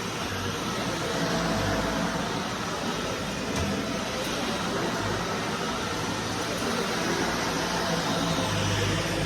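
Vacuum cleaner running steadily, a continuous whooshing motor noise with a low hum that shifts slightly as the cleaner is pushed back and forth.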